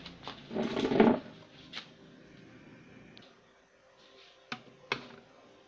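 Handling noises from an opened CRT TV chassis on a bench: a short loud rustling scrape about half a second in, then a few sharp clicks and taps with quiet between.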